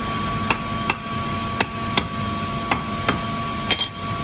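Hammer tapping the discharge-end seat of a rotary screw compressor air end down into place during reassembly: about seven sharp knocks, mostly in pairs. A steady hum runs underneath.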